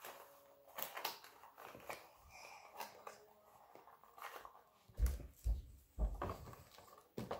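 Rustling and crinkling of toy packaging, plastic wrap, tissue paper and a cardboard box, as a doll is unwrapped and lifted out, with handling clicks throughout. Several dull thumps and knocks come about five and six seconds in, and one more near the end.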